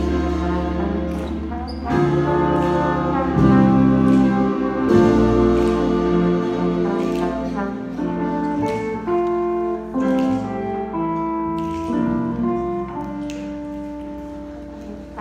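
School jazz band playing: held chords from saxophones and trombone over piano and upright bass, the notes changing every second or so. The music grows gradually quieter through the second half.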